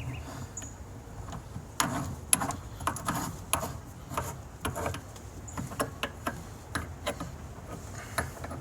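Metal pipe fittings clinking and scraping as a pipe nipple and tee are handled and threaded into a water heater gas valve: many short, irregular clicks and knocks.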